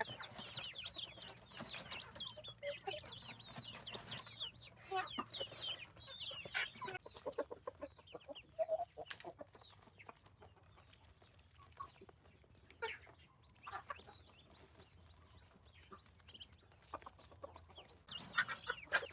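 Chickens clucking, with scattered short clicks. The calls are busiest for the first several seconds, thin out in the middle and pick up again near the end.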